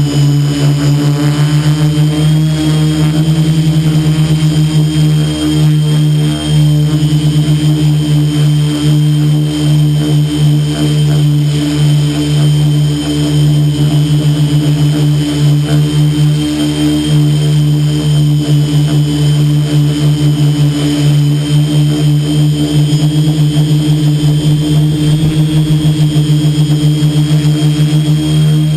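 Quadcopter's brushless motors and propellers running steadily, heard up close from the camera on board: a loud, even hum with a thin high whine above it, the pitch holding level as the drone hovers and drifts.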